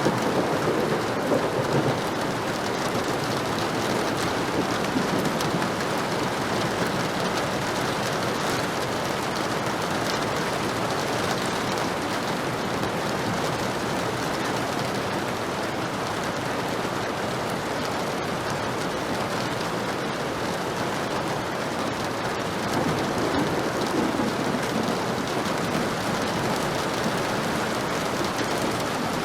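Heavy rain falling steadily, with low rumbles of thunder near the start and again about three-quarters of the way through.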